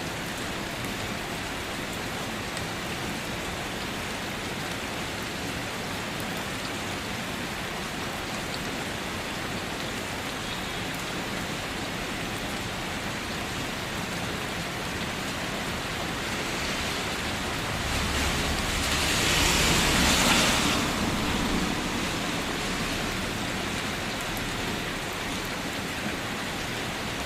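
Steady rain falling, an even hiss of drops. About two-thirds of the way in it swells louder for a few seconds, then settles back.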